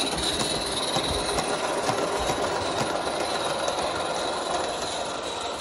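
A 1:19 scale live-steam Accucraft Sabrina locomotive running with its train on garden railway track: a steady rush of noise with scattered light clicks from the wheels on the rails.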